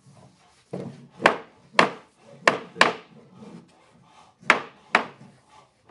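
Sharp knocks on a wooden workpiece, about six, mostly in pairs, with faint rubbing between them during a woodworking glue-up.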